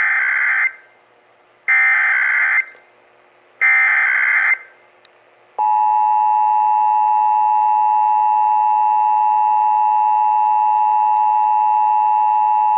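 Emergency Alert System test signal: three one-second SAME digital header data bursts about two seconds apart, then, about five and a half seconds in, the EAS two-tone attention signal (853 and 960 Hz together) starts and holds steady.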